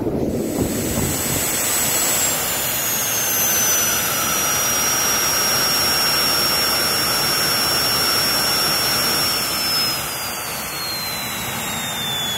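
Homemade turbojet engine built around a Holset turbocharger wheel, running on a test stand: a steady jet rush with a high turbine whine. The whine drops in pitch about two seconds in, holds, then slides lower again from about nine seconds in as the engine is throttled back.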